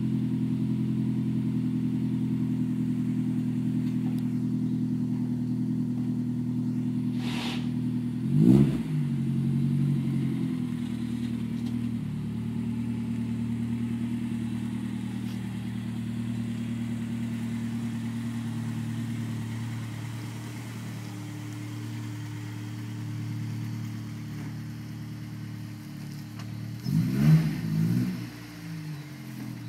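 Honda S2000's 2.0-litre four-cylinder engine idling and creeping at low speed through an aftermarket GReddy Ti-C single catback exhaust, with a short throttle blip about a third of the way in and a couple more near the end.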